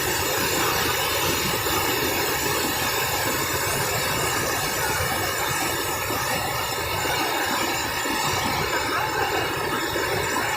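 Steady rush of a heavy waterfall about 50 m high, water pouring down without a break.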